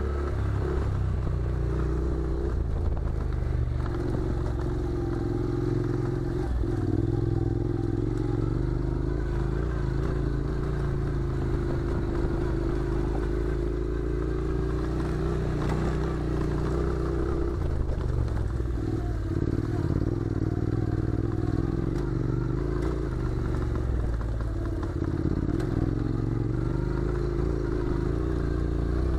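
Honda NC700's 670 cc parallel-twin engine running at low revs under a rider on a rough dirt track, its pitch rising and falling gently with the throttle. Clatter from the tyres and bike over the loose gravel runs along with it.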